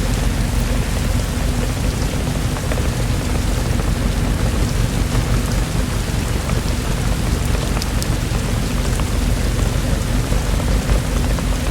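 Steady, even rainfall with a constant low rumble underneath and a few faint drop ticks.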